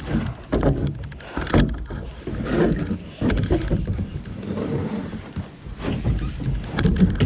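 Kayak paddling: the paddle splashes in the water and knocks at irregular moments, over a low rumble.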